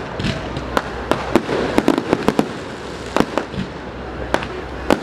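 Fireworks going off: a rapid, irregular string of sharp bangs and pops, several a second, over a steady background of noise.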